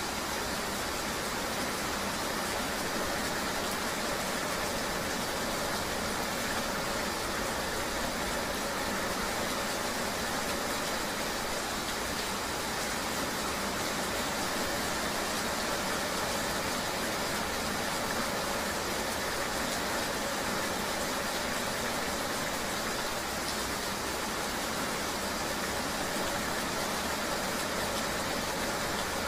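Steady, even rain hiss with a vehicle-like road drone, unchanging throughout, with no separate drops or events standing out.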